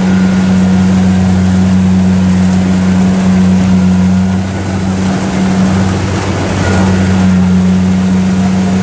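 Kubota DC70 combine harvester's diesel engine and threshing drive running steadily while cutting rice. The steady low drone wavers and dips for about two seconds midway, then settles again.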